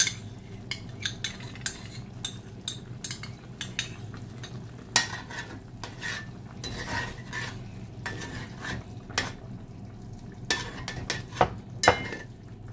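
A metal utensil stirring ketchup into simmering brown stew chicken in an aluminium pot, clinking and scraping against the pot's sides at irregular moments, over a steady low hum.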